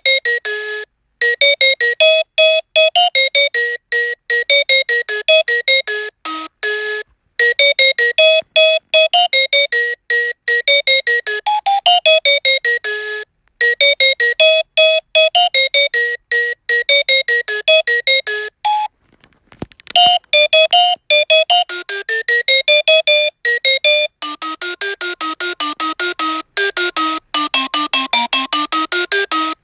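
Reizen talking clock alarm tunes: electronic beeped notes in quick runs that climb and fall in short melodic phrases, with brief gaps between phrases. About two-thirds of the way through there is a short break with a click, and a lower-pitched tune with a different tone follows.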